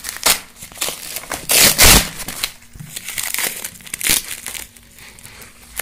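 Corrugated cardboard packaging and plastic shrink-wrap being handled and pulled about: irregular crinkling and rustling, loudest about one and a half to two seconds in, then lighter.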